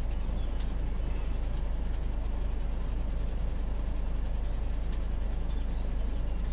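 Heavy motorhome on the move: a steady low engine and road drone, with no change in pitch or level.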